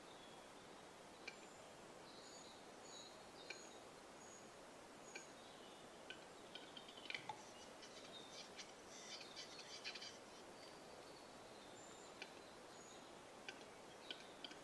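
Western capercaillie cock displaying, faint: sharp dry clicks spaced a second or two apart, coming quicker in a run about nine seconds in. Short high thin calls of small songbirds sound around them.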